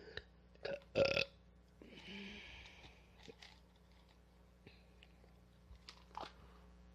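A woman burping: a short, loud burp about a second in, a smaller one near the end, with a soft hiss and faint clicks between.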